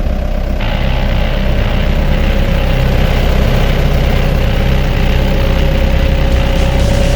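Yanmar B65 crawler excavator's diesel engine running steadily at idle, with a steady whine over the low engine note.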